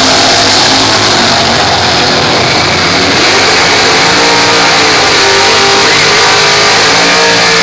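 Vintage drag-racing cars running at full throttle down the drag strip, a loud continuous engine sound whose pitch climbs through the gears and then holds.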